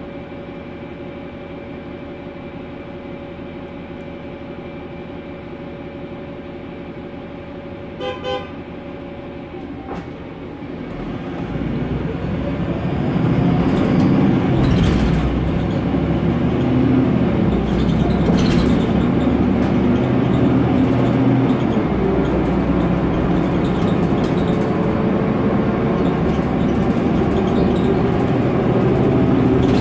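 Cabin of a Mercedes-Benz Conecto NGT city bus with its M 936 G six-cylinder CNG engine idling steadily; a short double beep sounds about eight seconds in. From about eleven seconds the bus pulls away, the drivetrain rising in pitch as it gathers speed, then running on with knocks and rattles from the noisy interior fittings.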